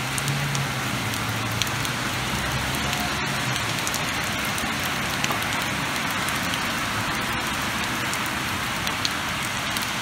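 Rain falling steadily on the street and surfaces: a continuous hiss with scattered ticks of single drops, and a faint low hum underneath in the first few seconds.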